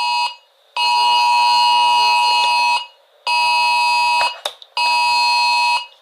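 Emergency alert attention tone: a loud steady electronic alarm of several stacked pitches, sounding in repeated blasts of one to two seconds with short silent gaps.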